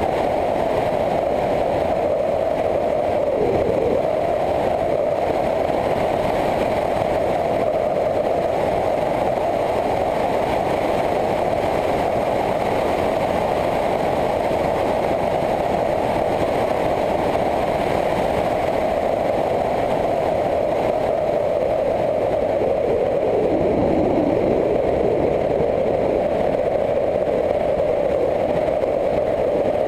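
Motorcycle engine running while riding along a country road, mixed with wind rush. The engine note dips and recovers twice, briefly about three seconds in and again about three-quarters of the way through.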